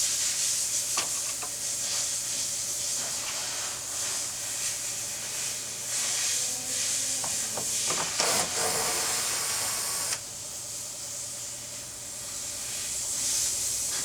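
Steady hiss with rubbing and a few clicks of hands working at plastic door trim; the hiss drops noticeably about ten seconds in.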